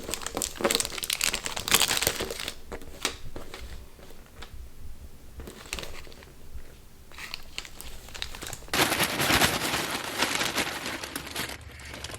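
Packaging wrapping crumpling and crinkling as an item is unwrapped by hand. It comes in irregular bursts, thins out in the middle, and turns into a dense stretch of rustling about nine seconds in.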